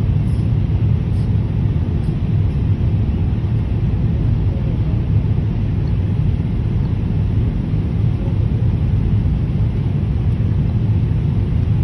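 Steady cabin noise inside a Boeing 787-8 airliner during its descent: an even, low rumble of the engines and airflow heard from a window seat by the wing.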